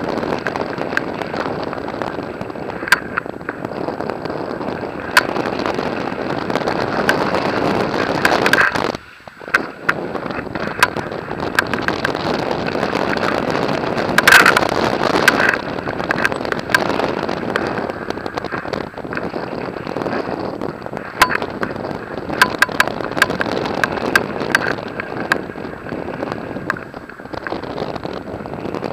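Airflow buffeting an action camera's microphone during paraglider flight: a steady rushing noise, with scattered sharp clicks and knocks and a brief drop-out about nine seconds in.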